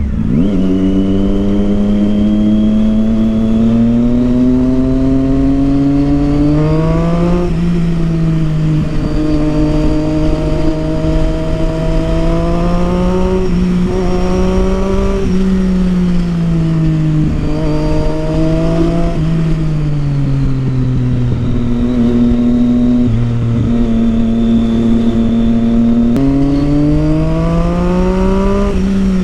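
Triumph Street Triple 675's inline three-cylinder engine through a Yoshimura aftermarket exhaust, ridden under throttle: the note climbs steadily, drops sharply at a gear change, then eases off and picks up again several times, climbing and falling once more near the end. The exhaust is loud enough, by the rider's account, to be heard two streets away.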